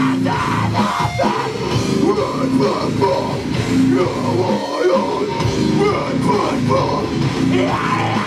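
Loud heavy rock band playing live: distorted electric guitar and drums at full volume, with yelling over it.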